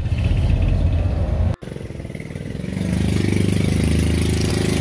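Motor vehicle engine running, heard from on board, with clatter. About a second and a half in, the sound cuts off abruptly. A steady engine sound then returns with a hiss and grows louder from about three seconds in.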